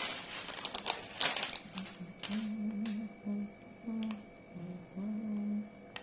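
Plastic packet of candy-coated chocolate buttons crinkling as it is handled. From about two seconds in, a low hummed tune in short notes, with only faint ticks after that.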